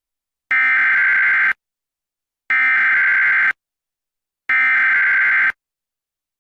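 Emergency alert SAME data header: three identical one-second bursts of buzzy, warbling digital tones, each about a second apart, the encoded header that opens an emergency alert broadcast.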